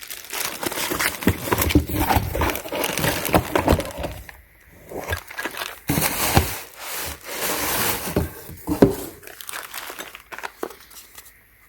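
Plastic packaging crinkling and rustling as a package is unwrapped by hand, with irregular clicks and knocks of small parts being handled.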